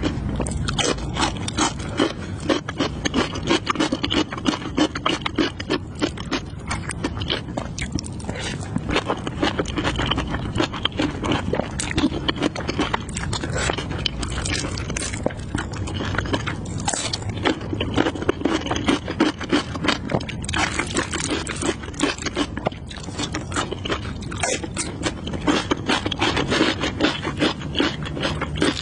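A person chewing spicy stir-fried noodles with kimchi and beef: a continuous run of small wet clicks and crackles from the mouth.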